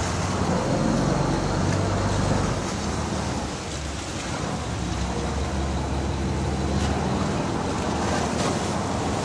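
A tour boat's engine running with a steady low hum, with water churning and splashing along the hull and against the cliff rocks.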